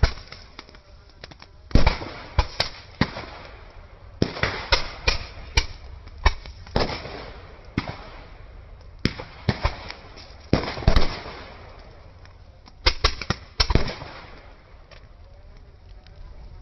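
Small firecrackers going off in irregular rapid clusters of sharp bangs, with short lulls between; the loudest bangs come about two seconds in and again around eleven seconds.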